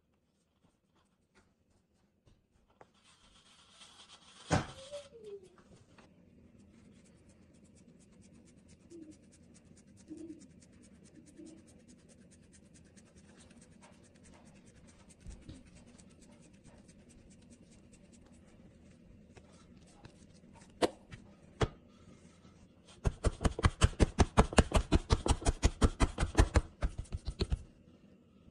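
Hands working paratha dough on a floured tray: quiet rubbing and handling with a single knock about four seconds in. Near the end comes a rapid run of pats as the dough is patted flat with the fingers, about six a second.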